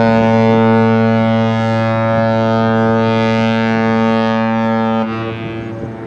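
Ship's horn sounding one long, deep blast that starts abruptly, holds steady for about five seconds and then dies away.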